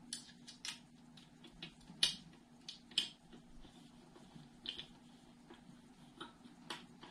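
Faint, irregular metal clicks and ticks of pointy-nose pliers and a lock nut being turned down onto a small bolt on an alloy bike rack, the two loudest clicks about two and three seconds in.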